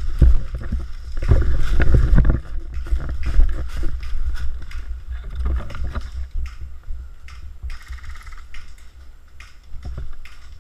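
Footsteps crunching and rustling through dry leaf litter, irregular and loudest in the first couple of seconds, over a steady low rumble.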